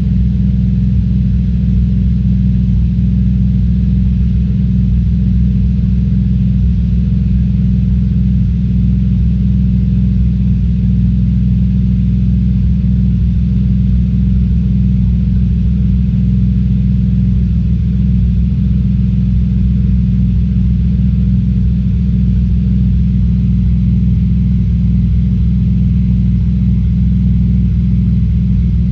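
Audi S4 B5's 2.7-litre twin-turbo V6 idling steadily after a cold start, running with a misfire.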